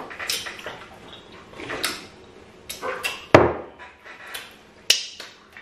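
Close-up eating sounds from fufu with okra soup eaten by hand: a run of short, wet lip smacks and finger-licking, with a louder thump about three and a half seconds in.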